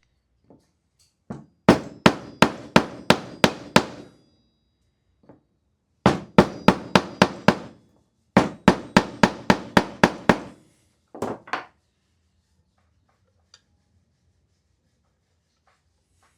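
Hammer tapping in quick, evenly spaced blows, about three a second, each with a short ring: a run of about seven, a pause, two more runs of six and seven, then two final taps.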